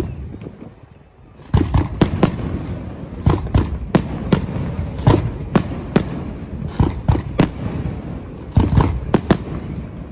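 Fireworks display going off: one loud bang at the start that dies away. Then, from about a second and a half in, a rapid, continuous barrage of bangs over a steady rumble.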